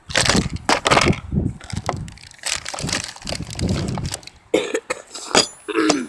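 Fishing tackle being handled: a run of knocks, rattles and clinks from the tackle box and its weights.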